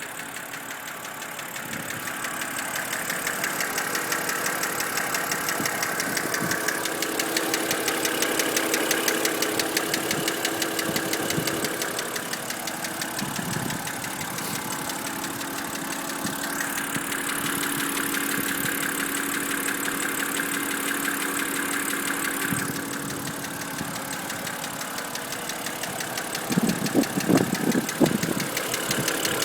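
BMW N52B25 2.5-litre inline-six running with a fast, regular knock that the owner cannot identify. A few louder, irregular thumps come near the end.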